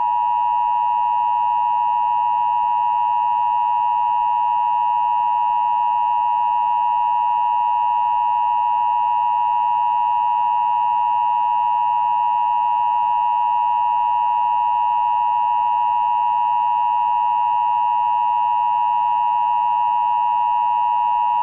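Emergency Broadcast System attention signal: two steady sine tones of about 853 and 960 Hz sounding together as one loud, unbroken, dissonant alarm tone. It alerts that an emergency message or broadcast-system test is about to follow.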